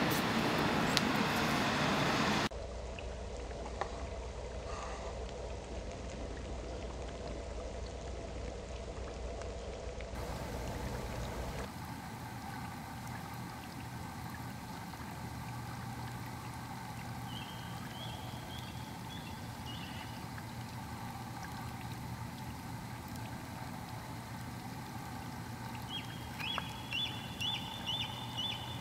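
Faint ambience by the water, with a low steady hum and a soft trickling sound, after a couple of seconds of louder, busier sound at the start. Twice, about two-thirds of the way through and again near the end, a bird gives a quick run of high chirps.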